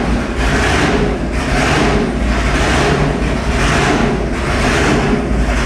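Roots-supercharged 572 cubic inch big-block Chevy V8 running at a fast idle of about 1,600 rpm, loud and steady with a rhythmic lope about twice a second.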